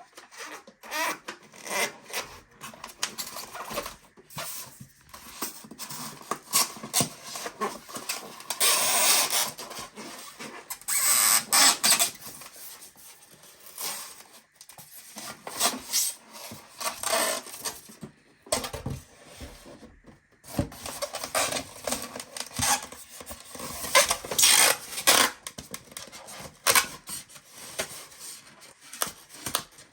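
Packaging and plastic parts being handled by hand: irregular scraping, rubbing and rustling with scattered knocks and clicks, pausing briefly a little past the middle.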